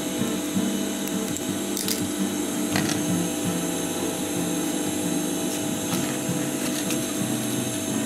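Background music over a steady hum, with a couple of faint clicks about two and three seconds in.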